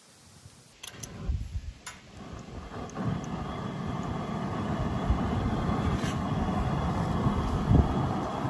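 Propane fish-fryer burner being lit under a charcoal chimney: a few clicks, then the gas flame builds over about two seconds and burns with a steady rushing noise.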